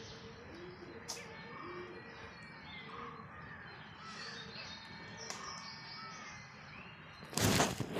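Birds calling in the background, short curved calls repeating over and over. About seven and a half seconds in, a brief loud rush of noise.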